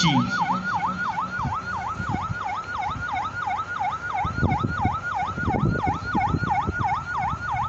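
Emergency vehicle siren in a fast yelp: the pitch dips and rises about three times a second without a break. A few short low knocks sound about halfway through.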